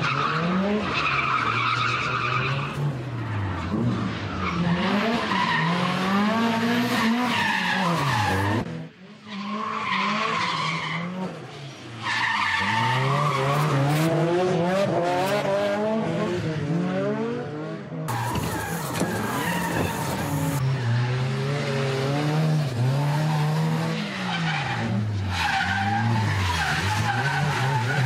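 Two Nissan drift cars, a Skyline R32 GT-R and a 180SX, sliding through corners in tandem: their engines rev up and down repeatedly while the tyres squeal. The sound drops away briefly twice, about nine and twelve seconds in.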